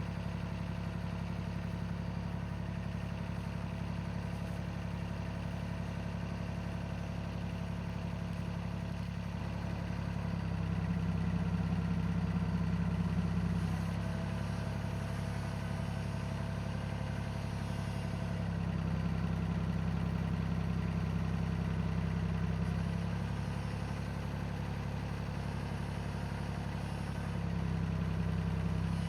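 Engine idling steadily, speeding up and running louder three times for a few seconds each, starting about ten seconds in, again near the middle and once more near the end.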